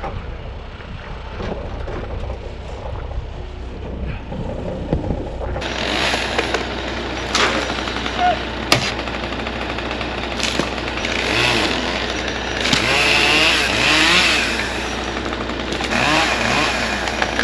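An engine running steadily, with scattered sharp knocks and clicks. The sound changes abruptly about five and a half seconds in, becoming brighter.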